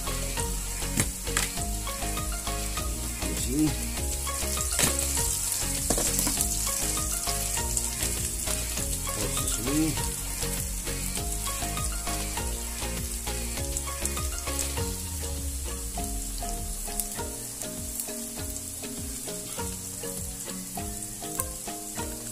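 Diced red onion and garlic sizzling steadily in hot oil in a wok, with scattered sharp crackles and pops. The sizzle eases slightly about two-thirds of the way through.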